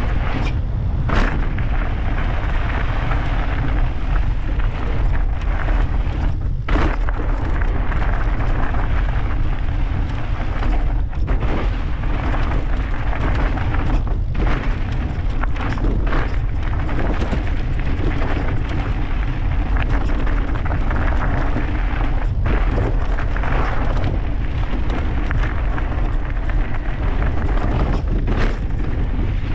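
Mountain bike ridden fast over a rough dirt trail, heard from a camera on the bike or rider: a steady, loud wind rumble on the microphone, with tyre noise and frequent knocks and rattles from the bike over bumps.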